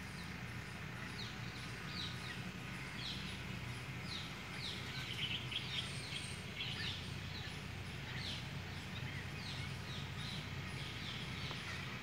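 Parrots calling with repeated short, falling chirps, thickest about five to seven seconds in, over a faint low steady hum.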